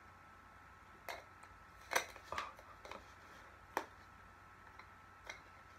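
Camera kit parts being handled: about five light clicks and taps spread over several seconds, the loudest a cluster about two seconds in and a sharp single click near four seconds.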